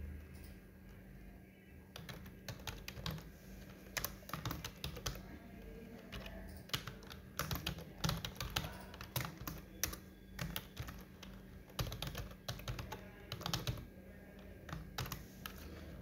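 Typing on a computer keyboard: quick bursts of keystrokes with short pauses between them, starting about two seconds in.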